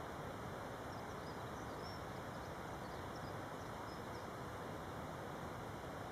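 Steady background hiss, with a few faint, short high chirps about one to four seconds in.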